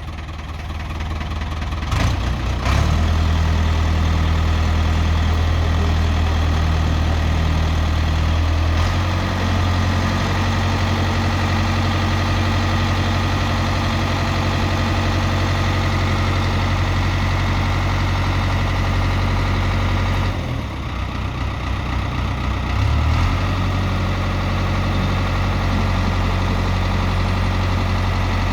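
Ford backhoe loader's engine running steadily, its note shifting a few times and dipping briefly about two-thirds through, with two short knocks a couple of seconds in.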